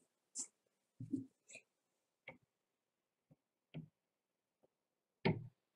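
A few scattered light clicks and knocks at uneven intervals, with a duller knock about a second in and the loudest click near the end.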